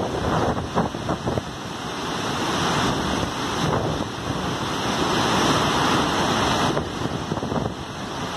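Shoshone Falls, a large waterfall on the Snake River, in heavy flow: a steady rush of falling water that swells a little past the middle, with wind buffeting the microphone.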